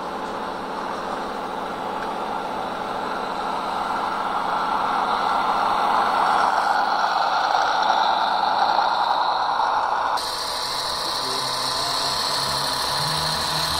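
Radio-controlled Mercedes-Benz three-axle tipper truck driving past on a dirt track, its running sound growing louder as it nears and easing off as it moves on. About ten seconds in the sound changes suddenly to a steadier engine-like running.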